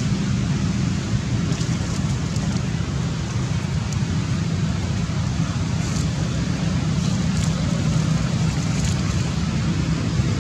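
Steady low rumble with an even hiss behind it, with no distinct events; the material does not tell whether it is wind on the microphone or distant traffic.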